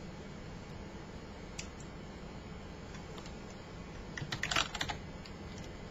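Typing on a computer keyboard: one faint click about a second and a half in, then a quick run of keystrokes around four seconds in, over a steady low background hum.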